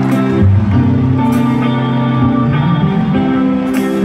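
Rock band playing live through an arena PA, heard from the crowd: electric bass and electric guitar holding low notes that change a few times, with three cymbal crashes.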